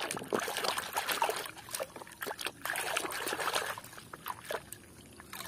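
A hand sloshing and swishing muddy plastic toys through a basin of soapy, muddy water, with busy splashing and trickling. It eases off about four seconds in, leaving a few small splashes.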